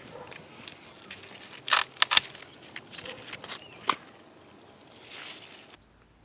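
A few sharp clicks and short rustles over quiet outdoor background: a brief loud one under two seconds in, a quick double click about two seconds in, and another near four seconds.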